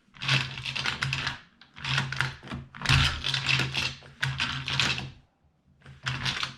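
Mag Pump 9mm magazine loader being pumped by hand, rapid clacking in about five bursts as cartridges are pushed into a Glock double-stack magazine.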